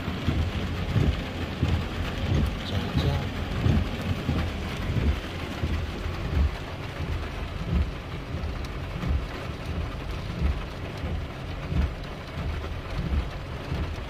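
Rain falling on a car, heard from inside the cabin, over a steady low rumble of the car on the road.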